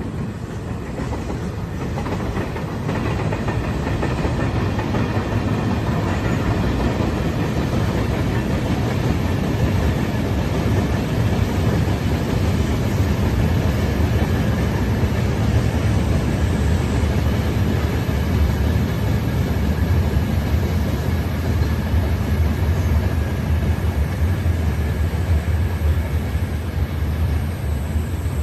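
A train running past on the rails, a loud steady rumble with wheel clatter that builds over the first few seconds and then holds.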